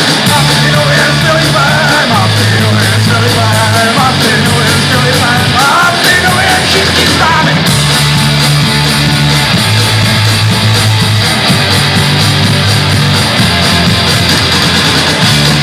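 A live punk-rock band plays a loud instrumental break: a wavering lead melody over a stepping bass line and steady drums and cymbals. The lead melody drops out about halfway through, leaving the band's backing.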